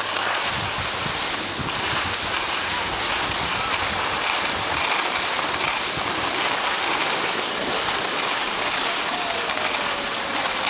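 Steady scraping hiss of sliding fast over hard-packed, groomed snow while riding downhill, with low wind buffeting on the microphone during the first few seconds.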